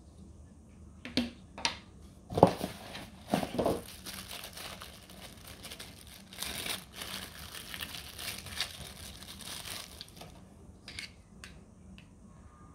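A few knocks of small plastic parts being set down on a wooden table, then several seconds of crinkling as a small plastic packaging bag is handled and opened, and two light plastic clicks near the end.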